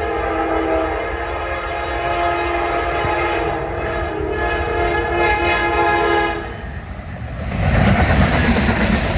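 Diesel locomotive's multi-chime air horn sounding one long chord of several notes together for about six and a half seconds. Near the end a loud rushing rumble takes over.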